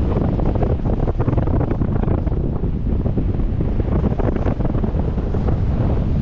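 Wind rushing over a helmet-mounted camera's microphone in paraglider flight: a loud, steady buffeting rumble.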